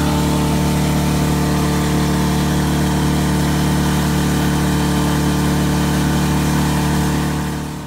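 A loud, steady engine drone at a constant pitch, with no change in speed; it fades out near the end.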